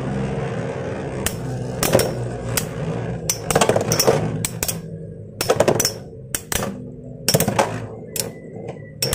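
Three Metal Fight Beyblade tops, among them Gravity Perseus 145WD and Rock Aries 145SD, whirring as they spin on a plastic stadium floor, with sharp clacks each time their metal wheels strike one another or the stadium wall. The whirring fades over the last few seconds as the tops lose spin.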